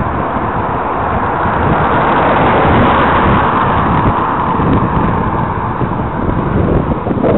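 Wind rushing over a head-mounted camera's microphone while riding a mountain bike along a tarmac road, with a Volkswagen Golf overtaking partway through.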